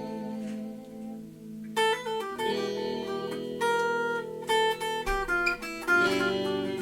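Solo acoustic guitar playing a Spanish-style blues in A minor: a chord rings out and fades, then a quick run of single plucked notes, then a louder strummed chord near the end.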